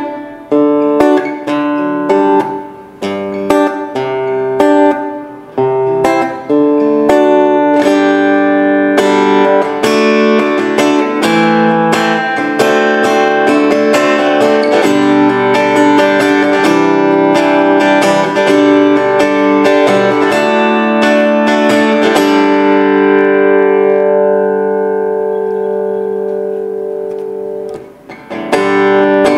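Donner Hush I silent travel guitar with acoustic strings, played through its piezo pickup with the low (bass) control turned fully down. Single notes and chords are picked, and the playing grows denser after several seconds. Then a chord is left to ring out and fade, and the playing picks up again near the end.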